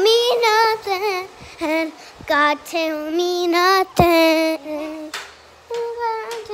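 A five-year-old girl singing in short phrases close to the microphone, with a brief pause about five seconds in. A single knock sounds about four seconds in.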